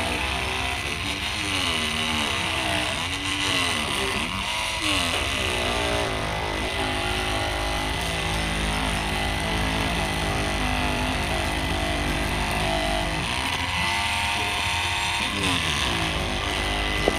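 Cordless 20 V INGCO oscillating multi-tool running at a raised speed setting, its blade sawing through a hard durian husk. The buzz keeps rising and falling in pitch as the blade bites and eases, over a steady high whine.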